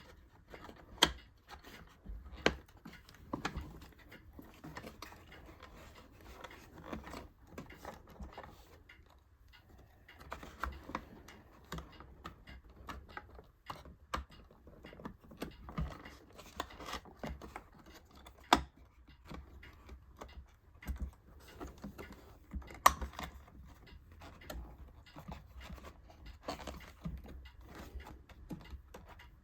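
Scattered clicks, taps and light scrapes of a drive and its metal bracket being handled, seated into the iMac's drive bay and its connector pushed home, with a few sharper knocks.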